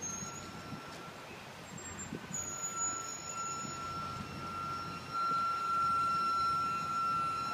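Circus train passenger cars rolling slowly over a grade crossing: a low rumble from the running gear with a steady, high metallic squeal that grows clearly louder about five seconds in.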